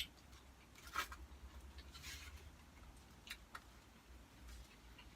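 Near silence, with a few faint short clicks and taps, the clearest about a second in and two more a little after three seconds.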